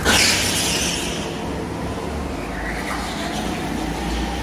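Steady rumble of a motor vehicle running, with a rush of hiss in the first second.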